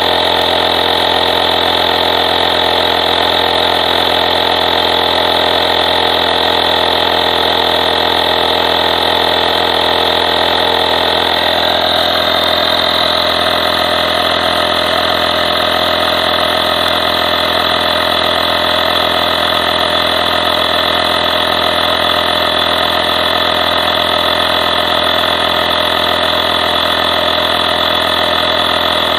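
Compact 12 V portable electric air compressor running steadily as it pumps air into a car tyre, with a dense mechanical buzz. Its tone shifts slightly about twelve seconds in.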